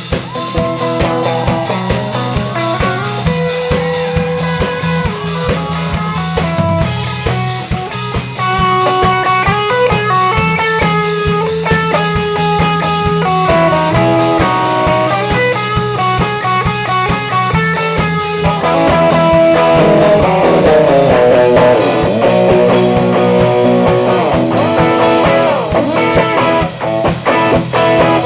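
Live band playing an instrumental passage, guitar over a steady drum beat and bass. It gets louder and fuller about two-thirds of the way through.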